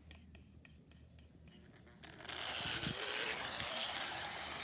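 Model steam locomotive starting to run about two seconds in: a steady whirring rattle of its small electric motor and wheels on the track, after a few faint clicks. It is running again now that hair has been cleared from its drive wheels.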